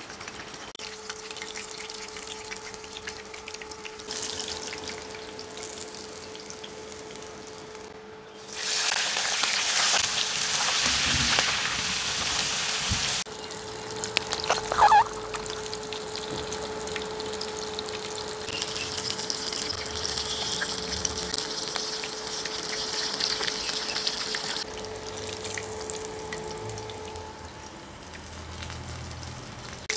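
Chicken pieces deep-frying in hot oil in a pan, sizzling and bubbling steadily over a constant hum. About eight seconds in the sizzle surges much louder for some five seconds, as a fresh batch of pieces goes into the oil. A short sharp clatter comes soon after.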